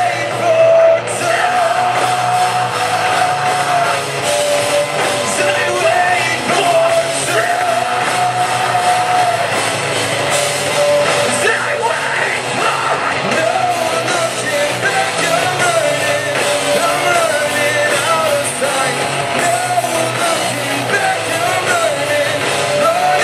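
A rock band playing live, heard from the crowd: electric guitar and full band under a sung lead melody, with shouted vocals over it.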